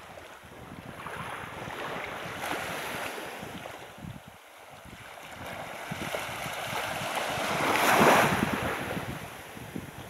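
Sea washing over a rocky, seaweed-covered shore, with wind buffeting the microphone. The wash swells twice and is loudest about eight seconds in, then fades.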